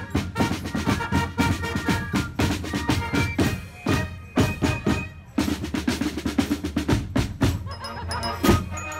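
A marching carnival band playing: snare and marching drums beating rapidly, with trumpets and trombone over them. The music drops briefly about five seconds in, then resumes.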